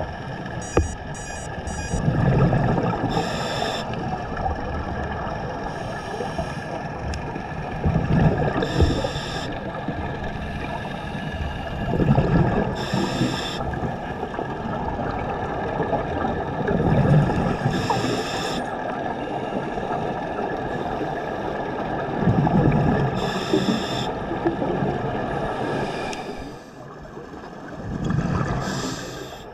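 Scuba diver breathing through a regulator underwater: a rumble of exhaled bubbles followed by a hiss of inhalation, repeating about every five seconds over a steady underwater hum.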